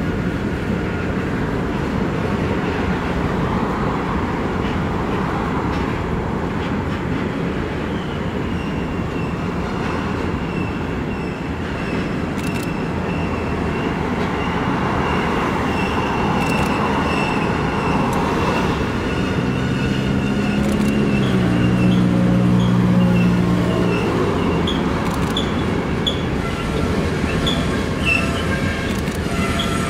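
Loaded covered hopper cars of a freight train rolling past, a steady rumble of wheels on rail with a thin, steady wheel squeal from about a quarter of the way in. Past the middle, a low hum rises and steps down in pitch for a few seconds. Near the end the squeal breaks into short repeated squeaks.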